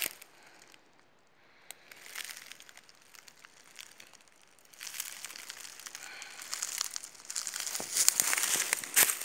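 Dry fallen leaves crackling and rustling as someone moves through them: faint for the first few seconds, then louder from about halfway in, loudest near the end.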